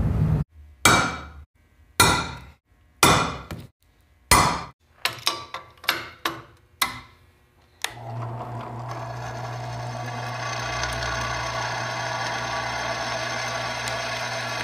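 A series of sharp, ringing knocks, about a second apart and then quicker. About eight seconds in, a drill press starts and runs steadily, its twist bit boring into steel tubing and curling off chips.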